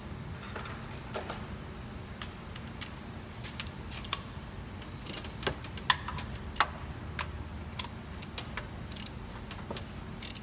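Metal hand tools clinking: a socket, extension and ratchet being handled and fitted onto the oil pressure sensor, about a dozen irregular clicks, a few louder ones around the middle. A steady low hum runs underneath.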